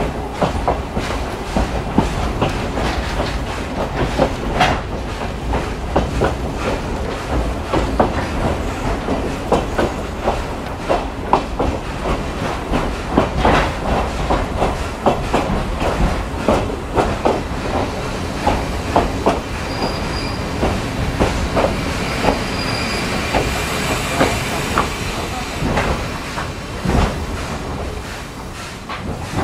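Ride noise inside a vintage passenger coach in motion: a steady rumble with wheels knocking over the rail joints, and two brief high squeals a little past the middle. The noise eases off near the end as the train slows for the station.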